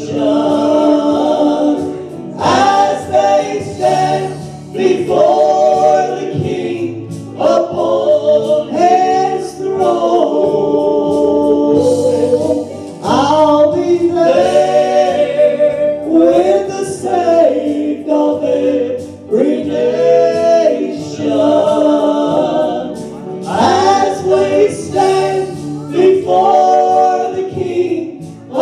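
Gospel singing by a group of voices, phrase after phrase, over a low steady accompaniment.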